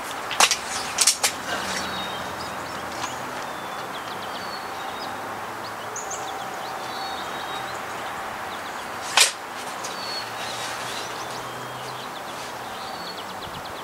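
Sharp clacks from the Crosman Shockwave .22 break-barrel air rifle being handled between shots: two quick clicks early on and one loud clack about nine seconds in, as the rifle is cocked and reloaded. Small birds chirp faintly throughout.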